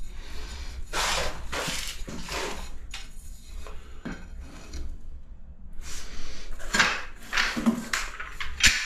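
Ceramic subway tiles clinking and scraping as they are handled and pressed into the combed tile adhesive on the wall, with a sharp click near the end.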